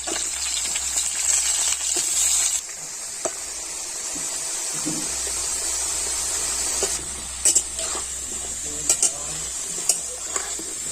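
Cut potatoes frying in a kadai of hot oil: a steady sizzling hiss that drops somewhat quieter about two and a half seconds in, with a few clicks of a spatula stirring them.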